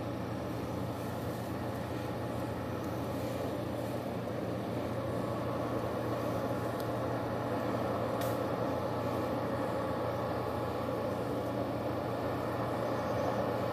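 Steady mechanical hum and rumble of background machinery or traffic, with a couple of faint clicks near the middle.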